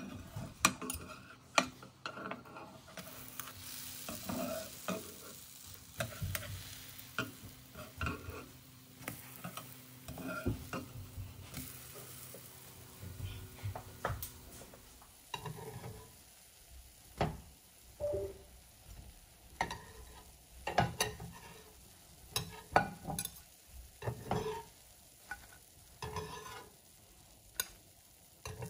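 Pancakes sizzling in a nonstick pancake pan, with a spatula scraping and tapping against the pan many times as they are flipped and lifted out.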